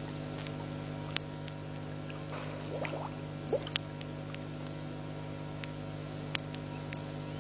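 A frog calling: short, high, rapidly pulsed trills repeated evenly, a little more than once a second, over a steady electrical hum, with a few sharp clicks.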